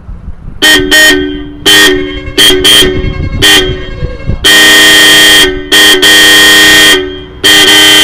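A pair of Roots electric disc horns on a Hero Splendor Plus motorcycle honking together as a loud two-note chord: six short toots, then three long blasts of about a second each. The horns sound strong and clear after their contacts were only cleaned, with no new contact point fitted.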